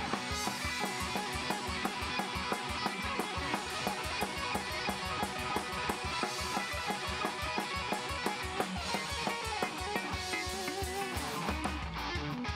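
Live band playing an instrumental passage on electric guitars, upright bass, banjo and drum kit, with a steady beat.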